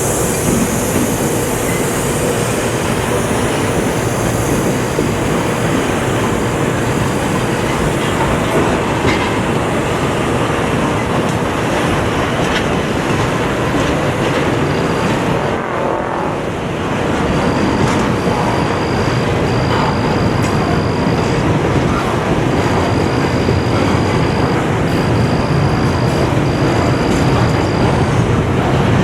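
Freight train of double-stack container cars rolling past at speed: a loud, steady rush and rumble of wheels on rail. A thin high squeal comes and goes in short stretches, mostly in the second half.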